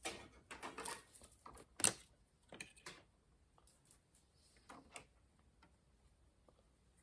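Insulated copper wire being stripped and handled: a quick run of scrapes and clicks, the loudest a sharp click about two seconds in, then a few scattered clicks around five seconds.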